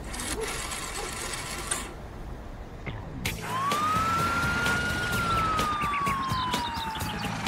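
Cartoon police-car siren sound effect: a single wail that starts about three seconds in, rises quickly, then falls slowly over about four seconds.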